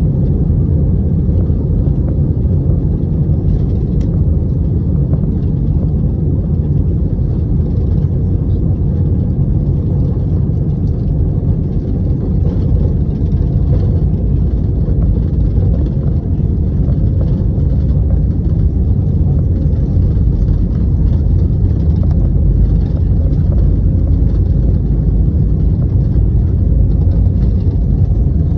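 Airliner engines at takeoff power during the takeoff roll, heard from inside the cabin as a loud, steady low rumble.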